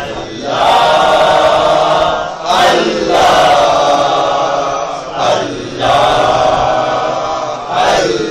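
A group of voices chanting a devotional salam together in long drawn-out phrases, each about two seconds long, with short breaks between them; a new phrase starts near the end.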